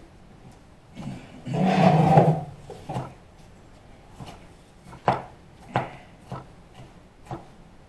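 Kitchen clatter during cooking: a scraping rub about two seconds in, then six or seven separate sharp knocks spaced irregularly.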